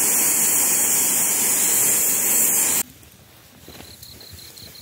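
Pressure cooker letting off steam through its weight valve: a loud, steady hiss of its whistle, the sign that the rice inside is at pressure. It cuts off abruptly about three seconds in, leaving faint crackling of a wood fire.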